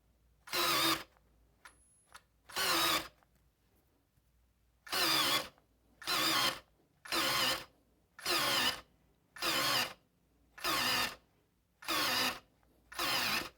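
Brushless cordless drill (Parkside Me PMBSA 4 A1) run in about ten short bursts of roughly half a second each, the trigger pulled and released again and again, mostly about a second apart.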